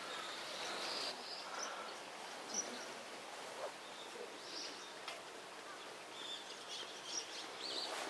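Faint outdoor ambience by a river: a steady low hiss with short, high bird chirps scattered every second or so.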